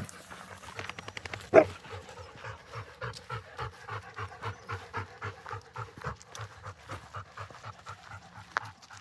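Labrador retriever panting close by, in quick, even breaths at about four a second. One short, loud sound comes about one and a half seconds in.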